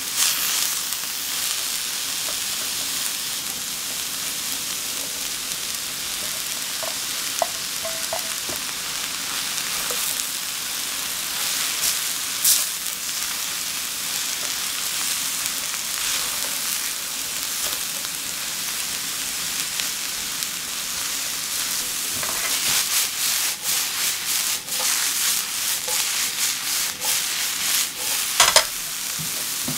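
Cauliflower and aubergine cubes sizzling in oil in a frying pan, stirred with a silicone spatula. From about two-thirds of the way through comes a run of quick scraping strokes, and near the end the pan is tossed and the pieces land back in it.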